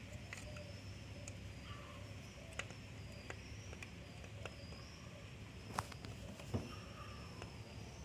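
Faint, scattered clicks and taps as a UTP wire is pressed into the punch-down slot of an RJ45 keystone jack with a screwdriver, over a low steady hum. The sharpest click comes near six seconds in.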